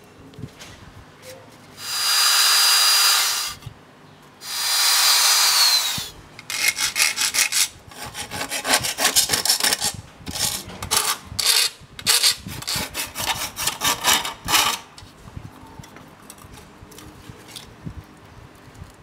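An angle grinder running in two short bursts, each about a second and a half, with a steady high whine that falls away as the motor spins down after the second. Then several seconds of quick rasping strokes, several a second, as the steel strip is worked by hand.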